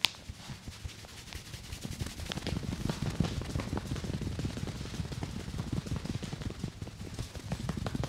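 A barber's hands working rapidly over a man's scalp and hair in a head massage, making a fast, dense patter of soft thumps and rustles that grows busier and louder about two seconds in. It opens with a single sharp click.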